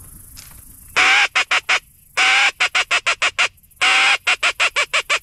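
Duck call blown in three loud runs, each a long drawn quack followed by four or five short quick quacks, the first starting about a second in.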